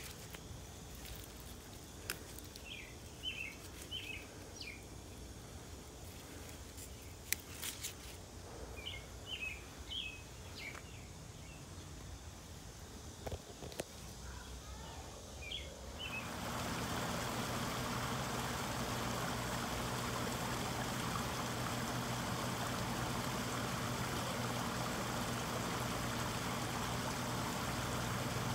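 Small birds chirping in short clusters over quiet outdoor ambience. About halfway through, this changes abruptly to the steady sound of water trickling into a garden pond.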